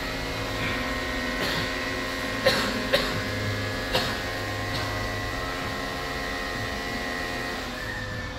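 Steady electrical hum with a high, even whine from electronic equipment running on a test bench. A few sharp clicks come in the middle, three of them within about a second and a half.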